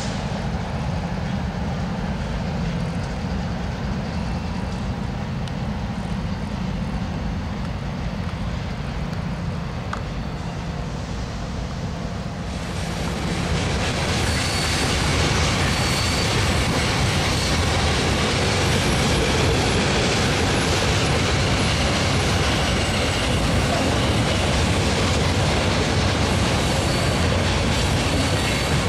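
Freight trains rolling past. First there is a steady low rumble. About halfway the sound turns louder, a fuller rolling clatter of freight cars with a faint high wheel squeal.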